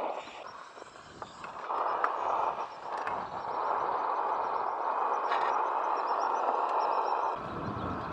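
Steady outdoor rushing noise with faint bird chirps. Near the end it switches abruptly to a lower, duller rumble.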